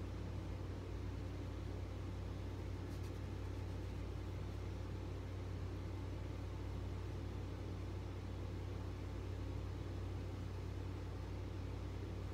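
A steady low hum under a faint even hiss, with a few faint ticks about three seconds in.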